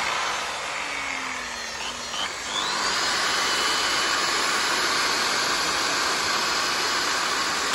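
Makita 165 mm electric circular saw running free with no load, a steady high motor and blade whine. It sags slightly about a second or two in, then the whine climbs back and holds. The sound cuts off sharply at the very end.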